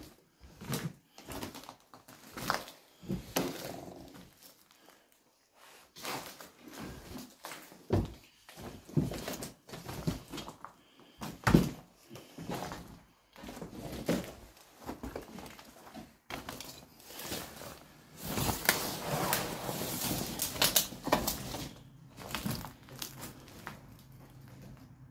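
Footsteps crunching and scuffing over broken glass and plaster rubble, with scattered knocks and clatters of loose debris; a longer, denser stretch of crunching comes about three-quarters of the way through.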